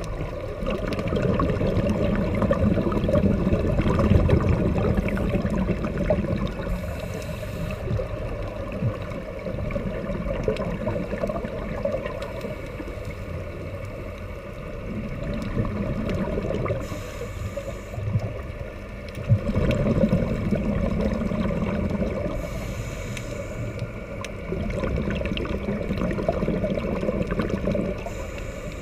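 A scuba diver breathing, heard underwater: exhaled bubbles rumble and gurgle for several seconds at a time, alternating with a short high hiss from the regulator on each inhale, about every five or six seconds.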